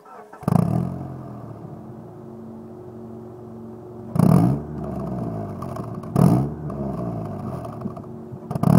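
Stock exhaust of a 2004 Mitsubishi Lancer Ralliart's 2.4-litre four-cylinder engine: it starts with a short flare about half a second in, then settles to a steady idle. Brief throttle blips rev it up and back down about four and six seconds in, and another begins near the end.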